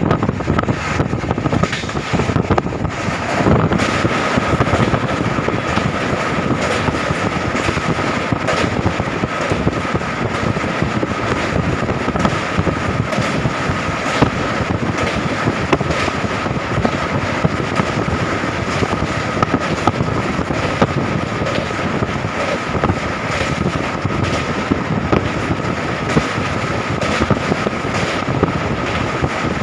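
Moving train: a steady rumble with frequent rattling clicks and a constant high whine.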